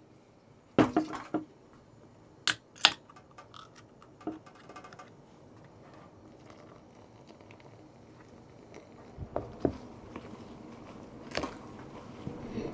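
A beer can is opened with a sharp crack and a couple more clicks. The beer is then poured into a plastic bowl of flour with a faint crackle, and a spoon starts stirring the batter, knocking lightly, near the end.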